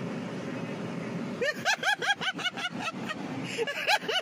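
Steady outdoor traffic hum, then about a second and a half in a person bursts into high-pitched laughter, a quick run of short rising-and-falling 'ha' sounds at about four a second.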